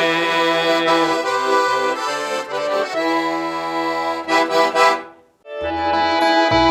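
Accordion music: sustained chords and melody in an instrumental passage after the singing. It breaks off about five seconds in, and after a short gap another tune starts with low bass notes.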